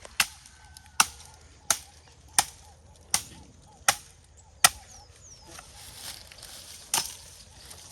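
Machete (panga) chopping wood: seven sharp blows about three-quarters of a second apart, a pause, then one more blow near the end. The wood is being cut into short pieces for charcoal burning.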